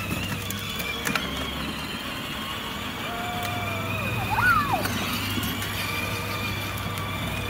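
Electric motors and gearbox of a ride-on toy Ford Ranger pickup whining steadily as it drives over asphalt. A short squeal rises and falls about four and a half seconds in.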